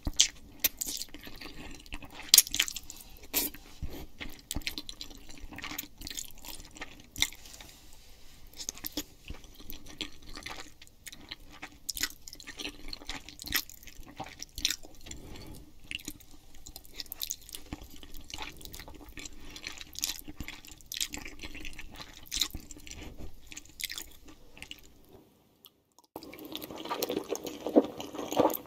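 Close-miked eating sounds of spaghetti in tomato sauce: wet chewing, sticky mouth clicks and noodles being sucked in. Near the end they stop for about a second, then come back louder and fuller.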